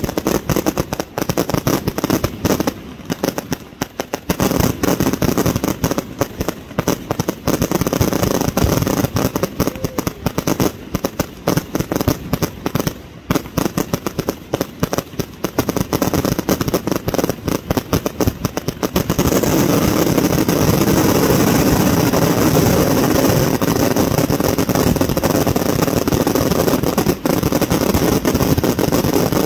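Fireworks going off: aerial bursts and crackle in a rapid run of many bangs, which about nineteen seconds in merges into a continuous dense barrage.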